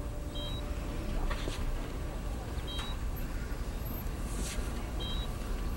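Hospital patient monitor beeping: three short, high electronic beeps about two seconds apart, over a steady low hum.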